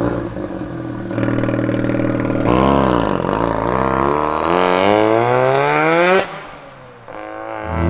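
Mazda FD RX7's turbocharged 13B rotary engine accelerating hard. Its pitch dips once about two and a half seconds in, then climbs steadily until the sound drops away suddenly about six seconds in; it comes back loud with rising pitch near the end.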